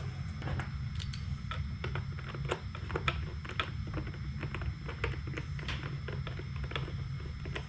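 Irregular small clicks and taps of a hand tool and plastic lamp parts as screws are fitted into a motorcycle's plastic cornering-light mount, over a steady low hum.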